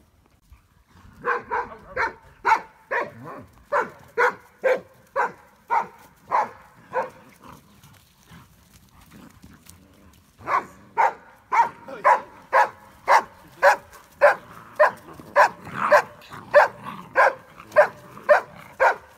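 A Briard puppy barking in a steady run, about two barks a second, then pausing for about three seconds before a second run of barks.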